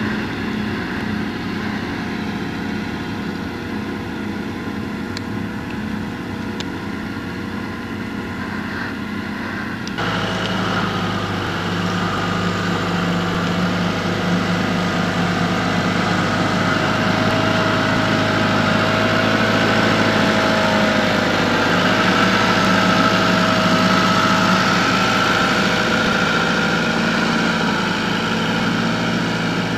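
Schiltrac transporter's engine running steadily as the machine works a steep meadow with its loader-wagon body. About ten seconds in, the sound cuts abruptly to a louder, closer run with a steady whine that wavers slightly in pitch.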